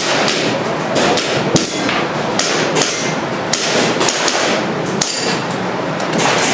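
Airsoft pistol firing a string of shots, sharp cracks at an irregular pace of about two a second, with BBs striking the targets.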